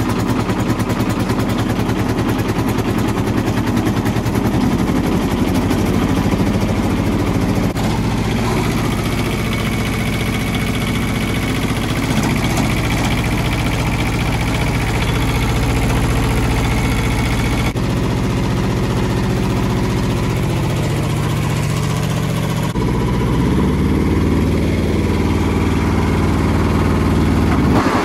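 Kubota T1600 mower's small two-cylinder diesel engine running at a steady idle, speeding up a few seconds before the end.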